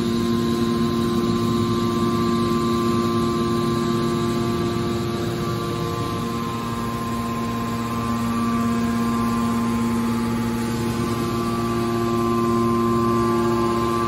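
Hydraulic power unit of a scrap metal baler press running: a steady electric motor and pump hum with a few fixed whining tones, easing slightly about halfway through.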